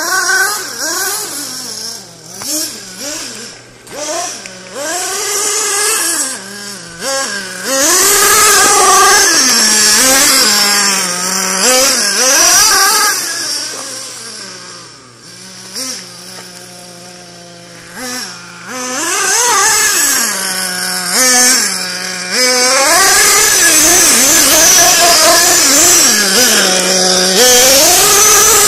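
OFNA radio-controlled buggy's small O.S. nitro engine revving up and down again and again at high pitch, with a hiss of tyres throwing gravel. It drops quieter for a few seconds in the middle, then runs loud near the end.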